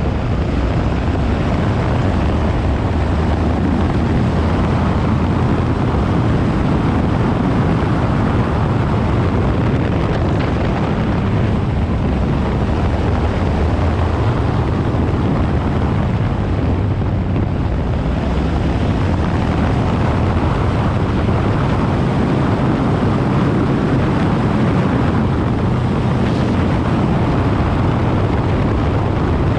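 Yamaha Ténéré 700's 689 cc parallel-twin engine running steadily under way, with wind rushing over the microphone.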